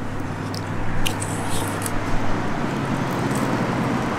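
A motor vehicle's engine running nearby, a steady low hum over outdoor traffic noise.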